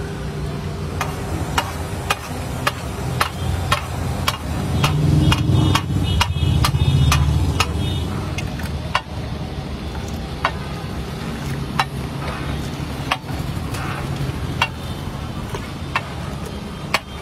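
Long metal ladle clacking and scraping against a large flat tawa while thick bhaji is stirred and spread, sharp knocks about twice a second in the first half, sparser later. A steady low traffic rumble runs underneath.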